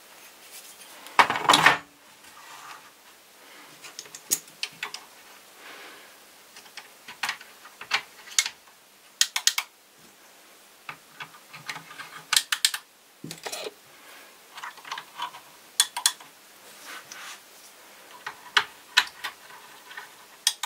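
Irregular clicks, taps and light rattles of the hard plastic chassis and parts of a Vorwerk VR100 robot vacuum being handled during disassembly, with a louder clatter about a second in.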